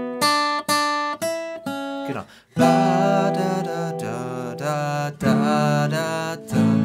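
Steel-string acoustic guitar with a capo at the second fret playing a melody: single notes picked one after another at first, then from about two and a half seconds chords strummed and left ringing while a man's voice sings the melody wordlessly over them.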